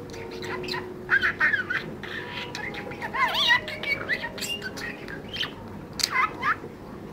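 Small pet parrot chirping and squawking in short, quickly bending calls, in bunches about a second in, around three seconds in and again about six seconds in.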